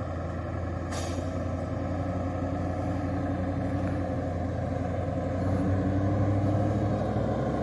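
Diesel engine of a loaded Mitsubishi Fuso truck pulling steadily uphill on gravel, getting louder as it approaches.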